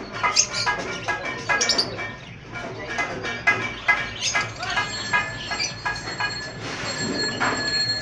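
Many caged birds chirping and calling over one another in quick, irregular bursts, with a few held whistles in the second half.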